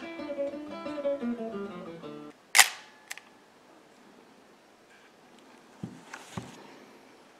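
Plucked acoustic-guitar music that stops a little over two seconds in, then a single sharp click, the Nikon FM's mechanical shutter firing, with a fainter click about half a second later. Two soft low knocks follow near the end.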